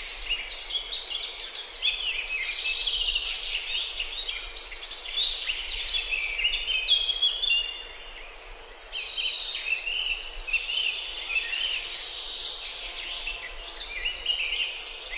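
Dense chorus of many small birds chirping at once, with a brief lull about halfway through.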